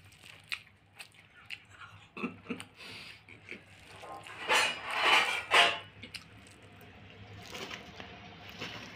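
Dishes and eating utensils clinking and scraping during a meal, in scattered short clicks, with a louder stretch of clatter about four and a half to six seconds in.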